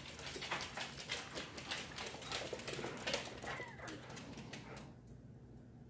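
Small dog whimpering, over a quick run of sharp clicks from claws on a hardwood floor that dies away after about four seconds.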